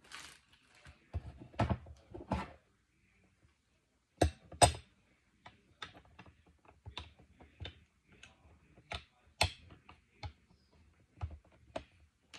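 Small irregular clicks, taps and knocks as the parts of a Bushmaster out-the-front automatic knife, its switch and handle cover, are fitted back together by hand and set against the workbench.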